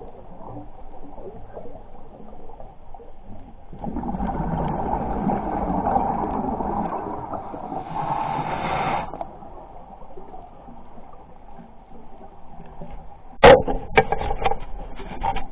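Muffled underwater noise picked up through a camera's waterproof housing, swelling louder for several seconds in the middle, with a few sharp knocks about thirteen seconds in.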